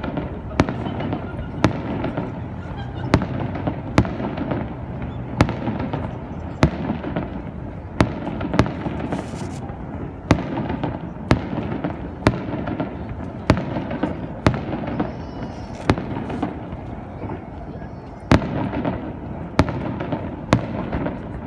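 Fireworks going off in a steady series of sharp bangs, about one a second, over a background of people talking.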